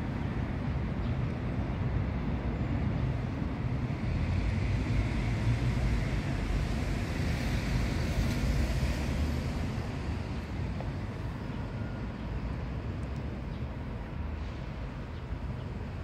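Road traffic: a steady low rumble that swells for several seconds in the middle, as a vehicle passes, then eases off.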